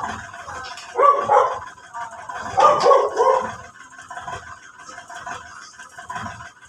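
A dog barking in two quick runs of several barks, about a second in and again around three seconds in.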